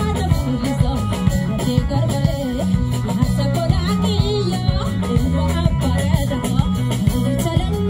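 Live band music: a woman singing over drums and electric guitars, with a steady beat.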